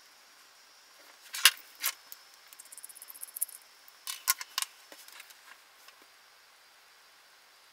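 Clicks and small rattles of plastic and metal cable connectors being handled and taken apart: a two-pin European wall plug and an RCA plug. Two sharp clicks about a second and a half in, a run of light quick ticks after them, and another cluster of clicks a little past the middle.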